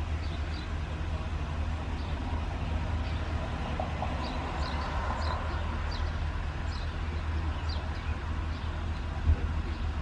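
Steady low rumble of an idling vehicle engine. Faint short high chirps recur throughout, and there is one brief thump near the end.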